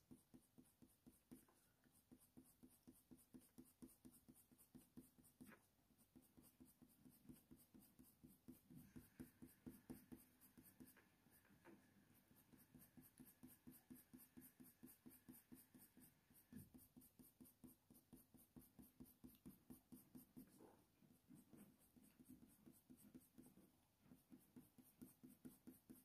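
Faint, quick scratching of a Faber-Castell Polychromos colour pencil stroked lightly back and forth on smooth hot-press watercolour paper, about three short strokes a second.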